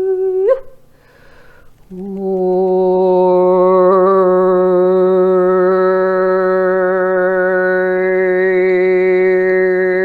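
A woman's voice toning long held notes in light language vocalisation. The first note slides upward and breaks off about half a second in. After a short breath, a new steady note starts about two seconds in and is held with a slight waver.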